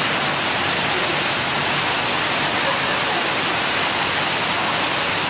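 Spa pool water cascades pouring from overhead spouts and splashing into churning pool water: a loud, steady rush.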